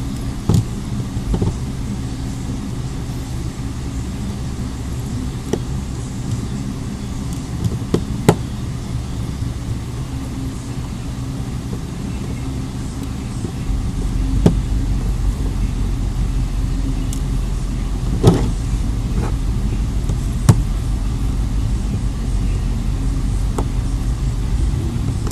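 A steady low background hum that grows heavier in the bass about halfway through, with a few sharp clicks and taps from the small plastic parts of a cell phone being handled and pried apart.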